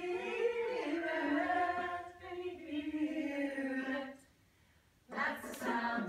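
Women's voices singing a slow, wavering chant without accompaniment, stopping about four seconds in. After a short pause, music with a steady beat comes in near the end.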